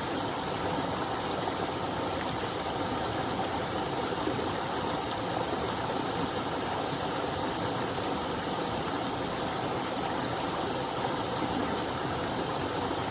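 Small but powerful waterfall running steadily: a continuous, even noise of falling water.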